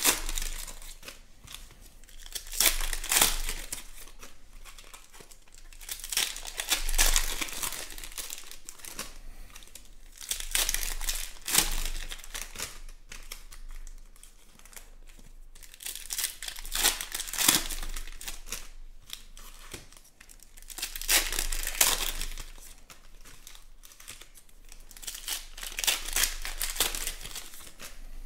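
Foil trading-card pack wrappers crinkling and tearing as packs are ripped open one after another, about seven bursts of crackle spaced roughly four seconds apart.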